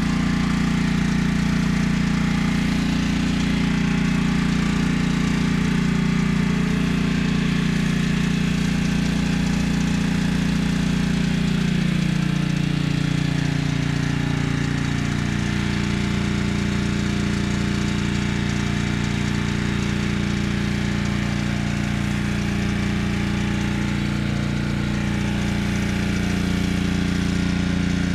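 Small gas pressure washer engine running steadily under a constant hiss. Its pitch drops a little about twelve seconds in and then holds at the lower speed.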